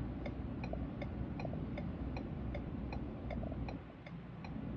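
Steady, evenly spaced ticking at about three ticks a second, over a low rumble.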